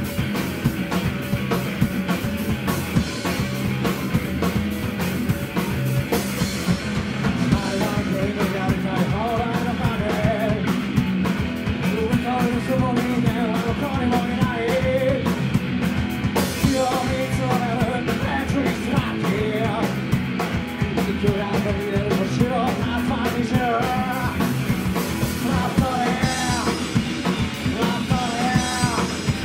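Live rock band playing loudly, with electric guitar, bass guitar and a drum kit, and a vocalist singing over them in a garage-punk style.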